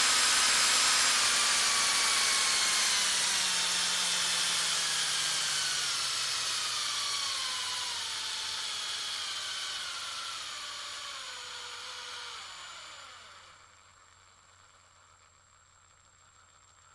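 Medium-sized drill motor spinning down: its whine falls steadily in pitch and fades over about twelve seconds. It runs out about thirteen seconds in, leaving only a faint steady hum.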